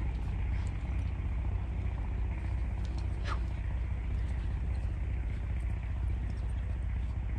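A steady low rumble with a short, faint falling squeak about three seconds in.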